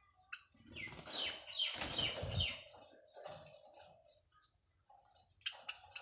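White Java sparrows in a wire cage: a burst of wing flapping and fluttering as one flies down from its perch, with short, sharp chirps over it, and a few more chirps near the end.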